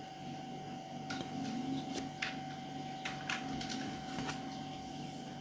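A few faint, irregular clicks, about one a second, from someone working at a computer, over a low steady background hum with a thin steady tone.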